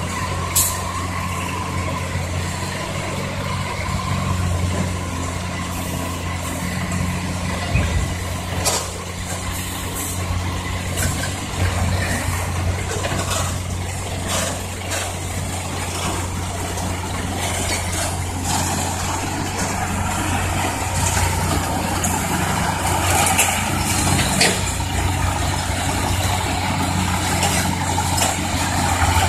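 Isuzu ten-wheel dump truck's diesel engine running steadily while the tipper body comes down and the truck moves off. Short sharp sounds come several times, and the engine grows louder in the second half.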